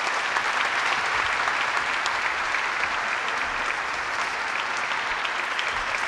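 Audience applauding steadily in a large hall.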